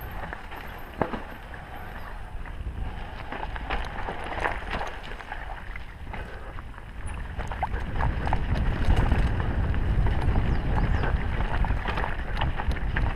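Sunn Charger S1 mountain bike descending a dirt trail: tyres rumbling over the ground with scattered sharp knocks and rattles from the bike, and wind buffeting the microphone. It gets louder about eight seconds in.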